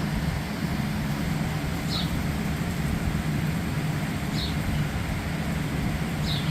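Steady low background hum and rumble, with a short, slightly falling high chirp repeating about every two seconds.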